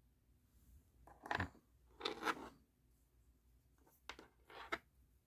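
Faint scraping and crinkling from handling an action figure's box and plastic packaging, in three short bursts.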